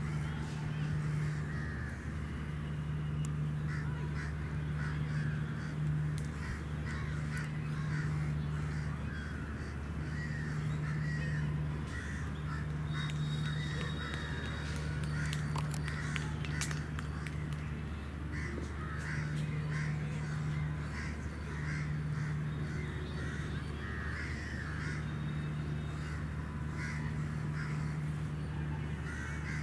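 Crows cawing over and over, with a steady low hum underneath.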